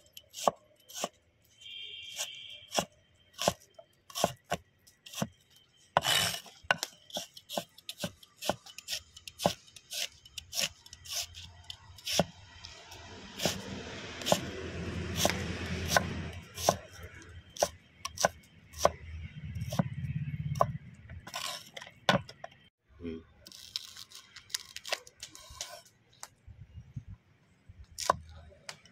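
A cleaver chopping onions on a thick wooden board: irregular runs of sharp knocks as the blade strikes the wood. A low rumbling noise rises and fades in the middle.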